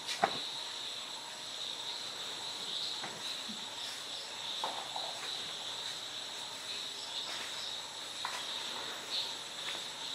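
Insects, likely crickets or cicadas, keeping up a steady high trill that pulses slightly. There is one sharp click just after the start and a few faint rustles and clicks as clothes are taken off the line.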